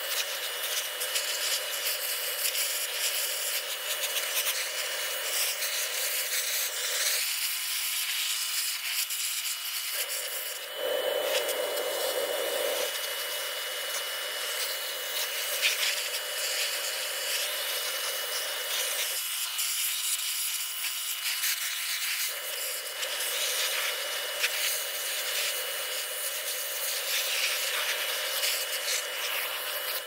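Pressure washer jet blasting grime off the steel boom and frame of a Case backhoe: a steady hiss and spatter. Its lower part drops away twice for a few seconds, about a quarter of the way in and again past the middle.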